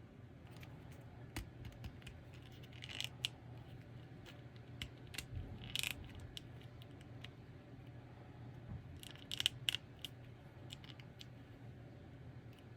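Scattered clicks, scrapes and short rustles of action-figure packaging being handled and opened, loudest in clusters about three, six and nine seconds in, over a faint steady hum.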